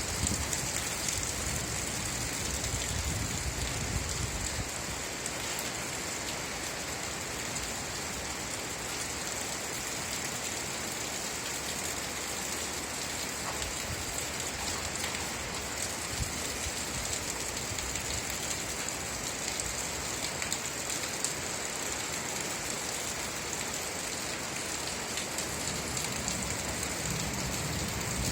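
Steady rain falling on a surface, with a low rumble underneath that fades out about four seconds in.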